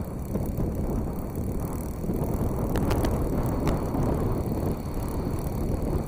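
Wind buffeting the microphone: a rough, steady low rumble that rises and falls unevenly, with a few faint ticks around the middle.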